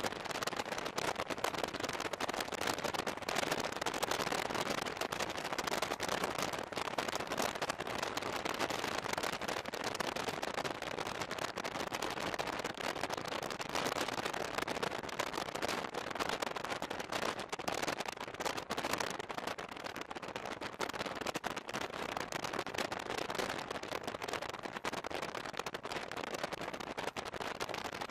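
Passenger train running at speed, heard at a coach window: a steady rush of running noise with dense crackling and no distinct rail-joint clicks.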